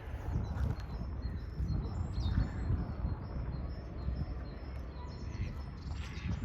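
Small birds chirping high and repeatedly over a steady low rumble of outdoor noise.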